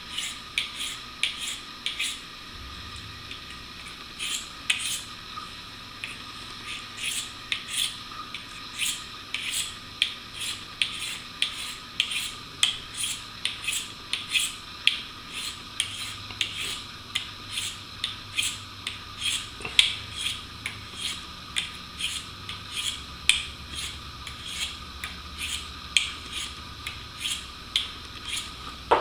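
Steel broadhead blade stroked over the fine side of a two-sided sharpening stone in a steady series of short scrapes, about two a second, as the edge is honed.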